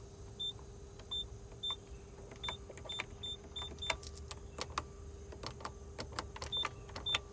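Dashboard control buttons in a 2003 Hyundai Sonata being pressed one after another. Each press gives a click, and about ten give a short high beep, mostly in the first four seconds and twice near the end. A steady low hum runs underneath.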